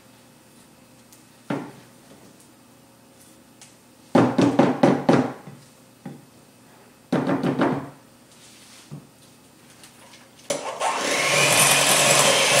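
Utensil scraping around a mixing bowl in two short bursts. About ten seconds in, an electric hand mixer starts and runs steadily, growing louder as it beats the cream cheese, sugar and egg.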